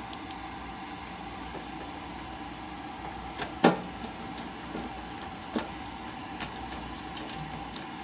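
Light clicks and taps of a hand tool and parts being handled inside a furnace's wiring compartment, with one sharper knock a little past midway, over a steady mechanical hum with a thin whine.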